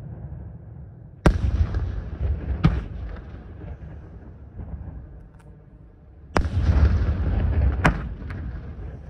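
Aerial firework shells bursting: a heavy boom about a second in and another past the middle, each followed by a rolling rumble, with a sharper single crack a second or so after each.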